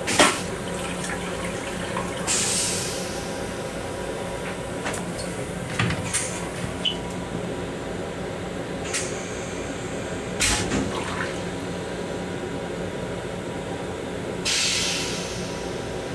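Flush cycle of the LIRR M7 train restroom toilet: a sharp click at the start, then two short hisses of water spraying into the stainless-steel bowl, one about two seconds in and one near the end, with scattered clicks between. The rail car's steady hum runs underneath.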